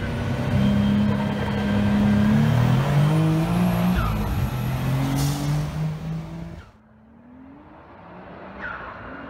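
Car engine at full throttle heard from inside the car, pulling hard through the gears: its pitch climbs in each gear and drops at upshifts about two and a half and four seconds in. The sound cuts off sharply about two-thirds of the way in, leaving a faint, distant engine revving as the twin-turbo 5.0 spins its tyres.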